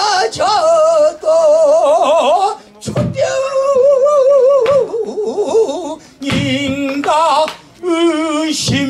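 Male pansori singer singing a sung passage in a strained, rough voice with wide, slow vibrato, held notes bending up and down between short breaths. A few sharp knocks cut in, the loudest about three seconds in.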